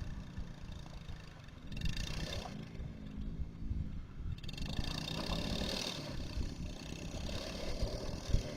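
Small ATV engine running, its pitch rising and falling with the throttle.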